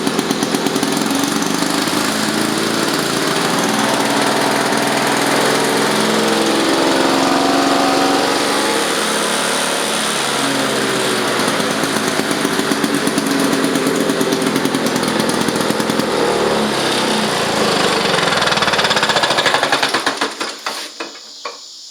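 Vintage Lawn-Boy mower's two-stroke engine running loudly after a pull start, its speed wavering in pitch now and then. The engine stops about twenty seconds in.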